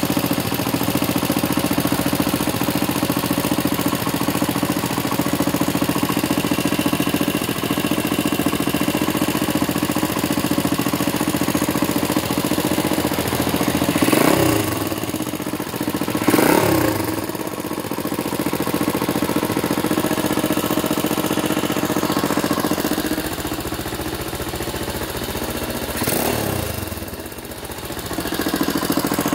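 Air-cooled single-cylinder UM motorcycle engine idling, revved up briefly three times: about halfway, again a couple of seconds later, and near the end. It runs with a loud abnormal noise, the sign of a faulty engine.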